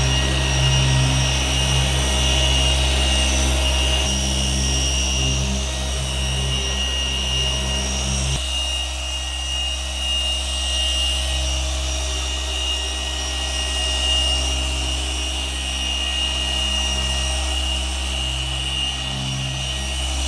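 Electric car polishing machine running steadily on paintwork, a constant high whine over a low hum; about eight seconds in its lower hum thins out suddenly, as with a change in pressure or speed.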